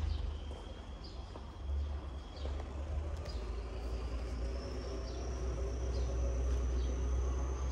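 Outdoor ambience: a steady low rumble, a thin high whine that slowly rises in pitch through the second half, and a few short bird chirps.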